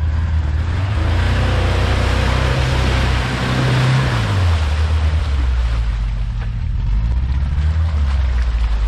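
Opel Frontera's 2.4 engine revving under load as the SUV crawls through a flooded, muddy rut on 35-inch Simex mud tyres, with mud and water churning and splashing in the first half. The revs drop about four and a half seconds in.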